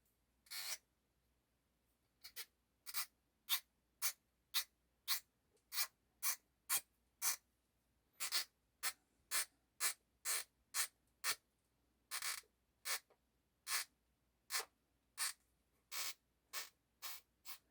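A swab being worked back and forth through a small opening in a disassembled folding knife's part: short scratchy rubbing strokes, one about half a second in, then a steady run of about two strokes a second.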